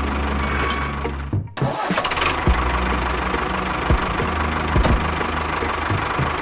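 Tractor engine running steadily, briefly cut off about a second and a half in and then running again, with a few low thumps.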